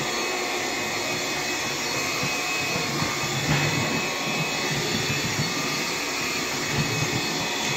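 Bissell PowerGlide cordless stick vacuum running steadily on low power with its brush roll off, a continuous motor whine and rush of air, with a few faint ticks as grit is sucked up.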